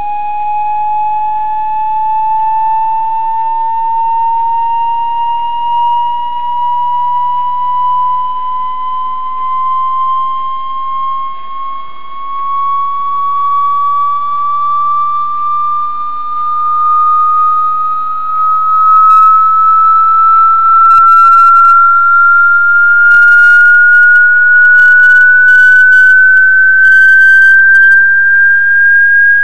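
Sine-wave test tone sweeping slowly upward in pitch, rising about an octave: a frequency sweep used as the test signal for an FFT audio visualizer. The tone gets louder about two-thirds of the way through, and a scatter of short clicks sounds near the end.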